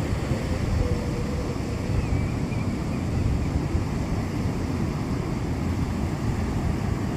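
Surf of a rough sea with wind rushing over the microphone: a steady low rumble of noise.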